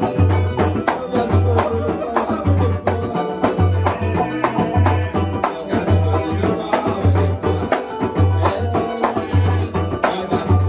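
Live samba played by a small acoustic group: strummed acoustic guitar, banjo and cavaquinho over pandeiro jingles and a large hand drum. A deep drum beat repeats steadily underneath.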